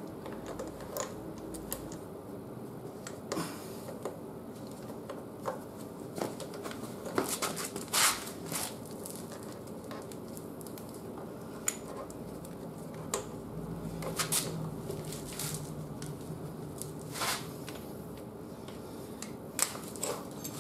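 Irregular small metallic clicks and taps of a hand tool and bolts being fitted and snugged up on a motorcycle's front fender mount.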